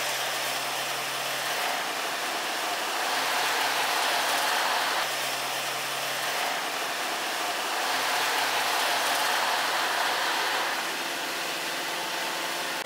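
Steady machine noise: an even rushing hiss with a faint low hum that drops in and out.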